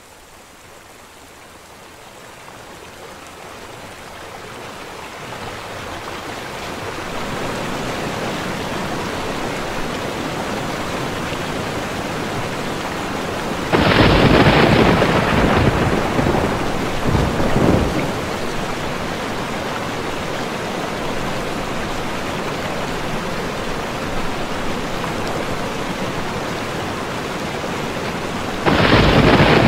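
Rainstorm sound effect: steady rain fades in over the first several seconds and then holds. Loud thunder comes suddenly about halfway through, with a second burst a few seconds later, and another thunderclap near the end.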